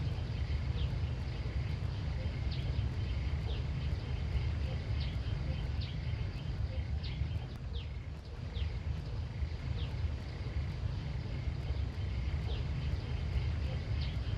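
Countryside ambience: a steady low rumble under short, high falling chirps that recur a few times a second, with a faint steady high drone.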